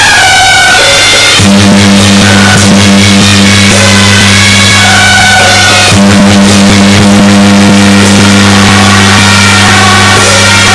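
Loud Taiwanese temple-procession troupe music: shrill wind instruments play a stepping melody over drum and cymbal strikes. A steady low hum runs underneath, growing stronger about one and a half seconds in.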